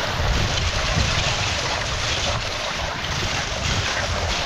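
Dogsled runners sliding over the snow trail with a steady rushing hiss, mixed with wind buffeting the microphone in a rough low rumble.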